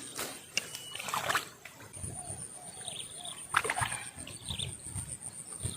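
Short chirping calls and a steady high-pitched whine, broken by a few brief splashing noises.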